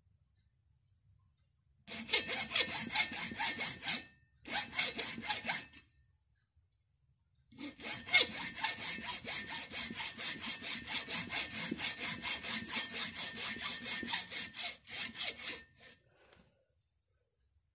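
Hacksaw blade cutting through the plastic case of a motorcycle battery, in quick back-and-forth strokes. It goes in three bouts: a short one starting about two seconds in, another after a brief pause, then a long steady run from about eight seconds in that stops shortly before the end.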